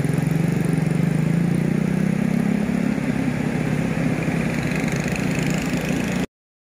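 Diesel engine of a Kobelco hydraulic excavator running steadily, a low pulsing hum that weakens about three seconds in. The sound drops out completely for a moment near the end.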